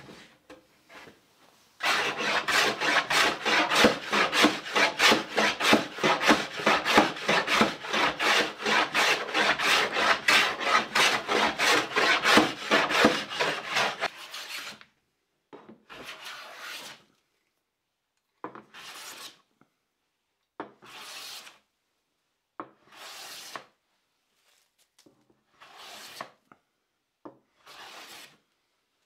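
Hand plane shaving across a wooden board to flatten out twist. About two seconds in come quick, short strokes, about four a second. After about 14 seconds they give way to single long passes, roughly one every two seconds.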